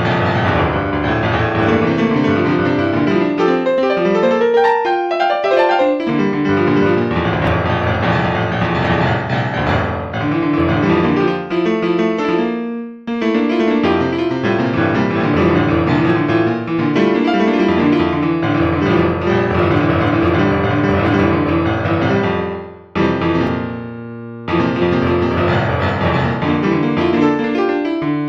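Piano music, with short breaks about 13 seconds in and again about 23 seconds in.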